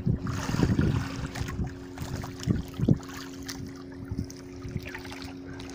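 Water sloshing around a small outrigger fishing boat, with a few knocks of gear against the hull and a steady low hum.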